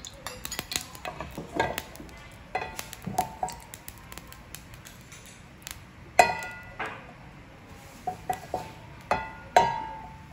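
Non-stick frying pan being tilted and swirled over a gas burner to coat it with hot oil: small pops and clicks throughout, and metal clanks that ring on, the two loudest about six seconds in and near the end.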